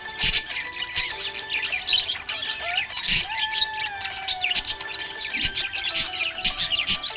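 Several budgerigars chirping and chattering continuously in quick, overlapping high-pitched notes. Steady held tones run underneath the chirps.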